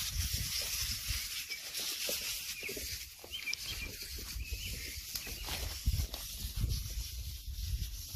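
Outdoor field ambience: wind and handling noise rumbling unevenly on the microphone under a steady high hiss, with a few short bird chirps.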